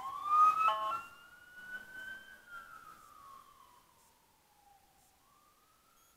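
Ambulance siren sounding a wail, a slow rise, a long fall and a second rise, fading steadily as the ambulance moves away through the intersection. A brief horn blast sounds over it about a second in.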